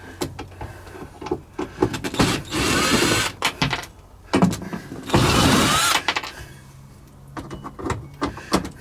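Cordless drill/driver with a square bit backing out screws: two runs of about a second each, the motor whine rising, with clicks of handling the bit and screws in between.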